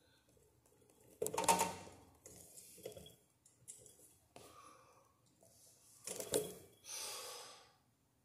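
Hands handling the metal down rod and collar of a ceiling fan during assembly: clicks, scrapes and rattles, with two louder knocks, about a second in and again about six seconds in.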